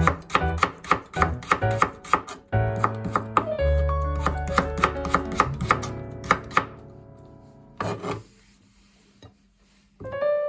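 Knife chopping on a cutting board in a quick even rhythm, about three to four strokes a second, over background music; the chopping stops about seven seconds in and the sound fades almost to silence before the music returns near the end.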